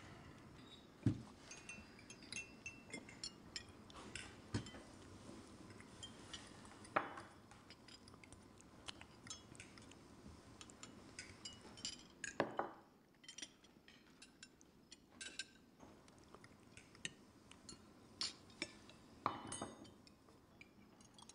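Forks and knives clinking and tapping on china dinner plates, with an occasional clink of glass: many sharp, irregular clicks of people eating at a table.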